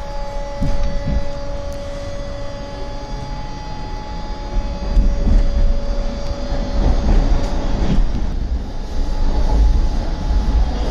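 Baltimore Metro subway train in an underground station: a steady two-note electrical whine that stops about halfway, over a low rumble of the train that grows louder in the second half.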